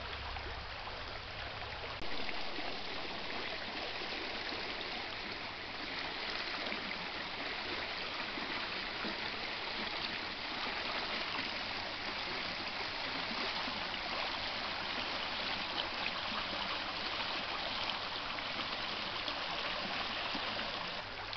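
Shallow stream flowing over rocks and stones, a steady rushing and trickling of water that steps up slightly about two seconds in.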